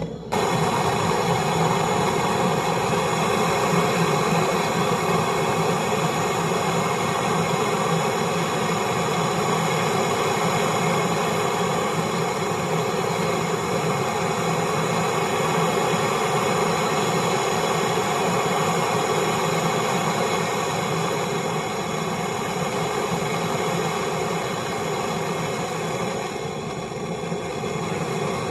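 Brazing torch flame burning steadily while a copper filter drier is brazed in: a continuous, even rushing hiss.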